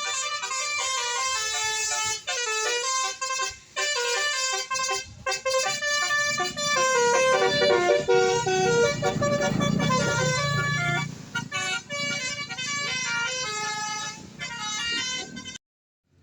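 Tour bus's multi-tone 'basuri' telolet air horn playing a tune of quick stepped notes, with a low rumble swelling under it, loudest about halfway. The sound cuts off suddenly near the end.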